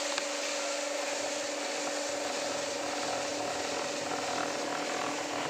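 Jar washing machine running a wash cycle: a steady pump-motor hum under the hiss of water spraying under pressure.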